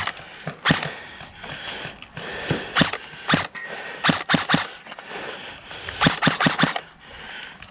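Airsoft guns firing: sharp, irregular cracks, single and in quick runs of three or four shots, the densest about four and six seconds in.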